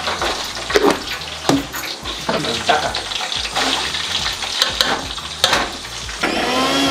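Mustard and cumin seeds spluttering in hot oil in a large aluminium kadhai: a steady sizzling hiss full of sharp crackles and pops. Partway through, a heap of chopped green chillies is tipped into the oil and fries with it.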